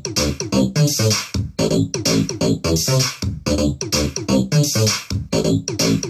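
Electronic dubstep track: synthesizer over a drum-machine beat, the same short phrase looping about once a second.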